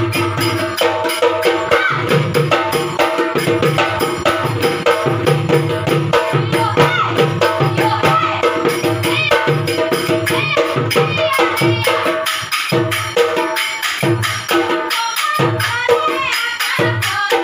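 Assamese Bihu-style folk music: fast, steady dhol drumming with small hand cymbals clattering on the beat, under a held drone and a moving melody line.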